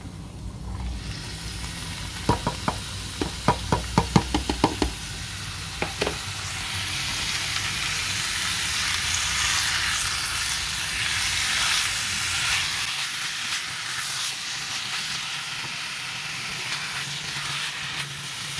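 Diced raw chicken frying in hot oil with garlic and herbs in a ceramic-coated frying pan, stirred with a spatula. The sizzle builds about a second in and then holds steady, with a quick series of sharp knocks about two to five seconds in.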